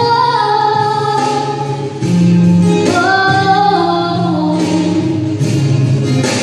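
A girl singing a slow ballad into a handheld microphone over instrumental accompaniment, in two long sung lines with held, bending notes.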